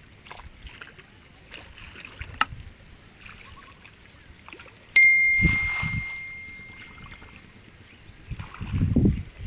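A single metallic ding about halfway through, a clear ringing note that fades away over about two seconds. Low thuds are heard around it and again near the end.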